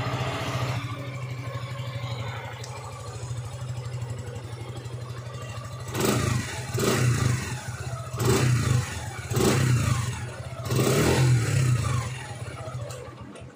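Suzuki Gixxer SF 155's single-cylinder engine idling steadily through its stock dual-outlet muffler. In the second half it is revved in five quick throttle blips, each rising and falling back to idle.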